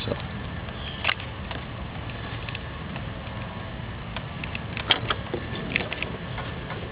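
Handling noise from wiring work: scattered clicks and short scrapes as fog-light wires are handled and wrapped with electrical tape, sharpest about a second in and a cluster around five seconds. A steady low rumble runs underneath.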